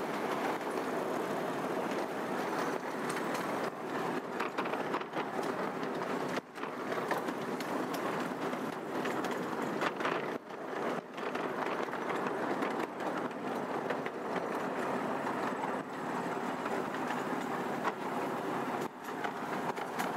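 A 12-inch gauge miniature ride-on train rolling along its track, heard from aboard: a steady rumble of the cars on the rails with irregular clicks from the wheels.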